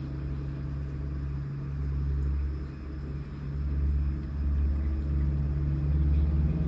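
A steady low hum or rumble, getting gradually louder.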